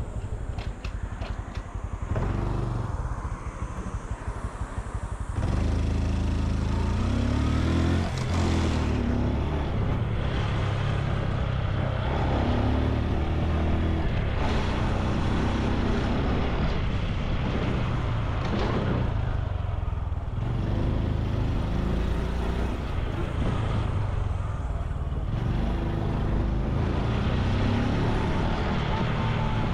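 Honda Super Cub C125's single-cylinder four-stroke engine and exhaust while riding. It is quieter for the first five seconds, then pulls away, and the engine note rises as it accelerates, several times over.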